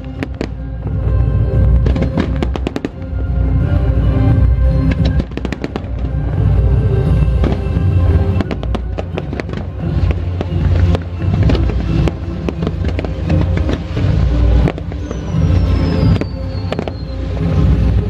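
Fireworks bursting and crackling in quick succession over loud show music with a steady low beat. A high, falling whistle sounds about fifteen seconds in.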